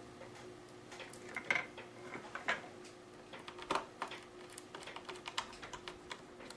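Faint, irregular small clicks and ticks of a screwdriver driving small screws into the screen hinges of an HP ze2000 laptop, over a faint steady hum.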